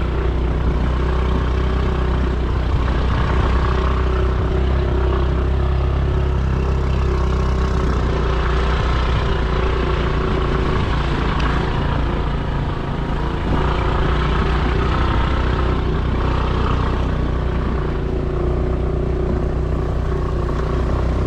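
Motorbike engine running steadily under load while climbing a steep, rough unpaved track, with a constant low engine hum and road noise.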